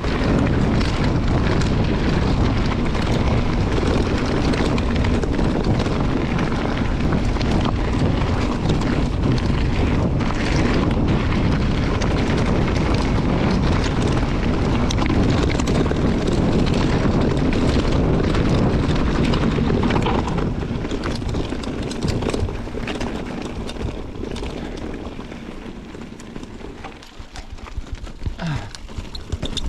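Wind rushing over the microphone of a mountain bike descending a dirt flow trail, with tyre rumble and scattered rattles from the bike. The rush is steady at first and dies down over the last third.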